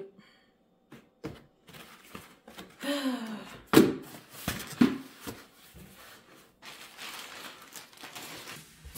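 Tissue paper and plastic wrapping rustling and crinkling as sneakers are packed into a cardboard shoebox. Irregular knocks and thunks come from the box being handled and its lid pressed shut, the loudest about four seconds in.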